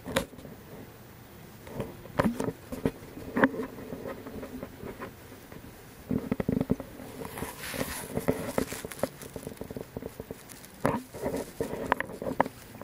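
Irregular rustling and crackling with scattered sharp knocks: a handheld camera being moved and handled close among nettles and grass.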